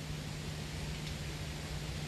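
Steady background hiss with a constant low hum underneath; no distinct event stands out.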